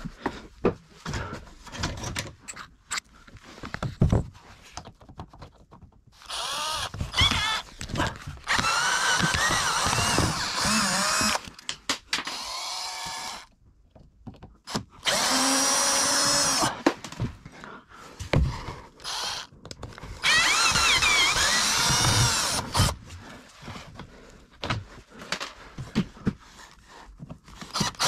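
Power drill-driver whirring in three runs of a few seconds each, its pitch rising and falling as it backs out screws from fittings being dismantled, with knocks and clatter of parts between the runs.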